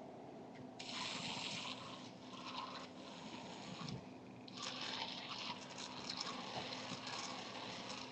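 Radio-controlled car's small electric motor and wheels running in two bursts, about a second in and again from about four and a half seconds, as a gritty hiss over a steady low hum.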